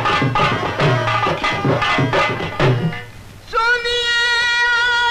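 Indian folk theatre music: a fast hand-drum rhythm with a melody over it, stopping about three seconds in. About half a second later a single high note starts and is held steadily.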